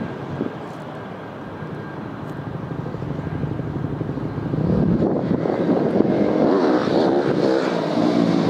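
Jet airliner's engines running at taxi power, a steady rumble and whine that grows louder about halfway through, with a wavering tone.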